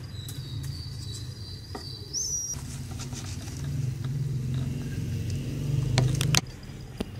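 Wooden spatula scooping and turning cooked chicken pulao rice in an aluminium pot, with a few sharp knocks against the pot near the end. A steady low rumble runs underneath, and a thin high steady tone sounds for the first two seconds or so.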